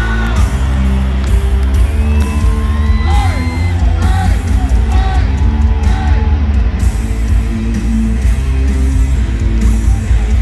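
Loud live heavy rock played over a stadium sound system, with heavy bass and electric guitar. Voices are yelling and singing over it.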